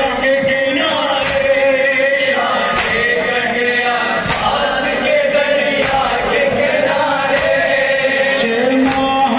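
A noha, a Shia lament, sung by a male lead through a microphone with a group of men chanting along. Slaps of chest-beating (matam) come about once a second.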